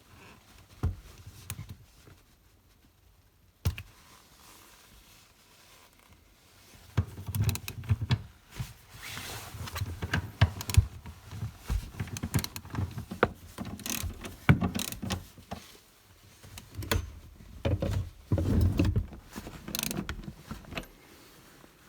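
Hand tools and metal parts being worked while a car seat is unbolted: irregular clicks, clanks and knocks, sparse at first and busy from about seven seconds in.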